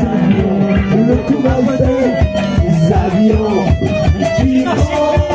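Live rock band playing loud: electric guitar and bass over a quick, driving drumbeat, with no vocals.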